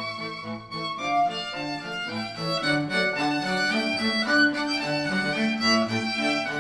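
Instrumental music with violin and other bowed strings, played back through Sennheiser headphones and recorded by microphones at the ear cups.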